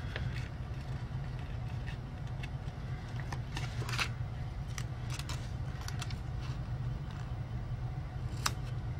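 Sticker sheet being handled and stickers peeled and pressed onto planner pages: scattered soft paper rustles and small sharp clicks over a steady low background hum.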